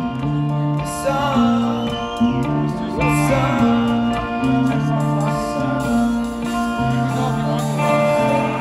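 Live rock band playing through a concert PA, with electric guitar, bass and drums and some singing over a repeating bass line, heard from within the audience.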